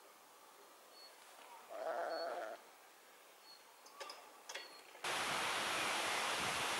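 Livestock bleating once, a short call about two seconds in, against quiet countryside, followed by a few faint clicks. About five seconds in the sound cuts suddenly to the loud, steady rush of a waterfall.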